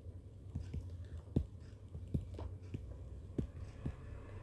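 Faint, irregular clicks and taps, about a dozen, over a low steady hum.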